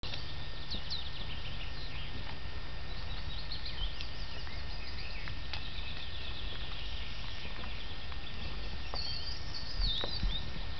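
Small birds chirping and trilling, with a louder bird phrase near the end, over a steady low rumble.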